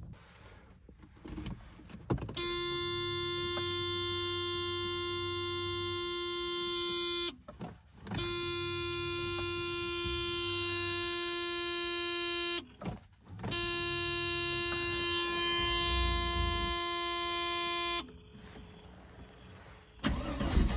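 A small electric motor in the car's cabin whining steadily at one pitch, in three runs of about five seconds each with short pauses between them.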